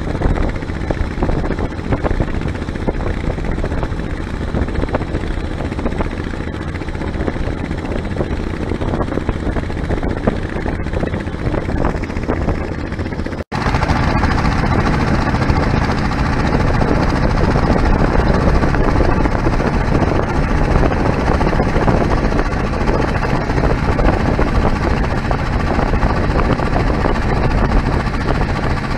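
Small boat's motor running steadily while under way across open water. The sound cuts out for an instant about halfway, then comes back a little louder.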